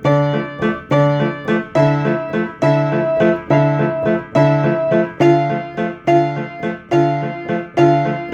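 Piano playing a repeating riff: chords struck at a steady pulse, roughly one every 0.8 seconds, over a recurring bass figure, each chord decaying before the next.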